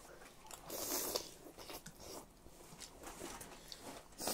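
Close-up eating sounds of a person slurping and chewing noodles, with soft mouth clicks. The loudest stretch, a short hissy slurp-like sound, comes about a second in.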